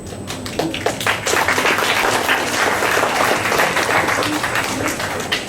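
Audience clapping together, building up in the first second and dying away near the end.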